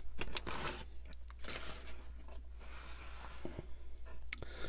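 Close-miked rustling and crinkling of a burger's paper wrapper as the burger is handled and slid out onto the board, with scattered light clicks and a sharper tap a little past four seconds.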